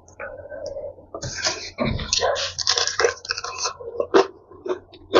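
Close-miked crunching of crispy fried chicken being bitten and chewed: a quick run of crackling crunches that starts about a second in.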